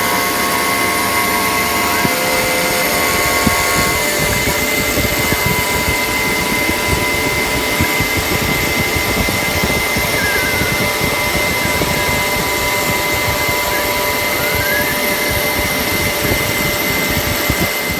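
CNC router spindle running with a steady high whine while the bit cuts into MDF, with a constant cutting noise beneath it. The pitch of the whine shifts slightly about four seconds in.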